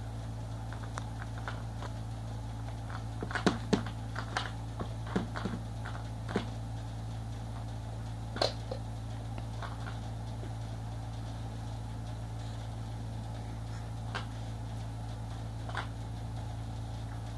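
Steady low hum with a scatter of light clicks and knocks, most of them between about three and six seconds in, and one sharper knock a little after eight seconds.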